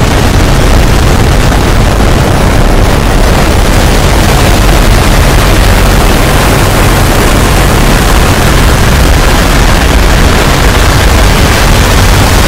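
Loud, steady, heavily distorted noise with a strong bass rumble underneath, unbroken throughout.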